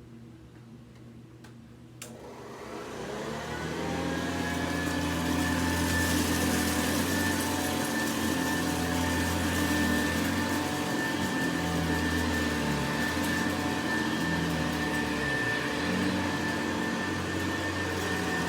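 Vintage Hoover 707 vacuum cleaner switched on with a click about two seconds in. Its motor winds up in rising pitch over a couple of seconds, then runs steadily with a hum and a high whine.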